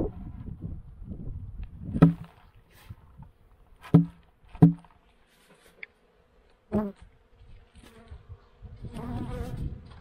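Honeybees buzzing in an opened winter hive, the buzz swelling near the end. Four sharp wooden knocks, about two, four, four and a half and seven seconds in, come from the hive's inner cover being handled.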